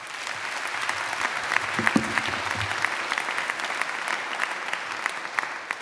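A large audience applauding, with dense clapping that tapers off slightly near the end.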